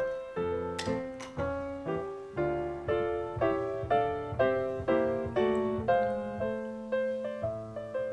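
Piano music playing steadily, about two notes a second. About a second in come two sharp clinks of ice cubes dropping into a glass.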